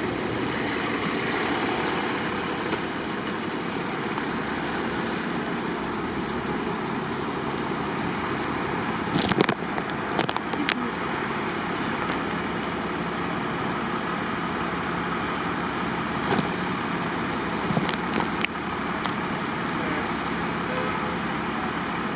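Steady running of idling heavy engines, such as fire trucks, with road traffic, broken by a few sharp knocks around the middle and again later on.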